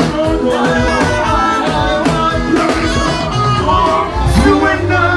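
Music: a song with singing over a steady beat. About four seconds in, the beat drops out and a deep, held bass note comes in.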